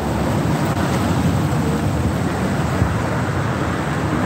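Steady street background noise with a low rumble, picked up on a phone's microphone.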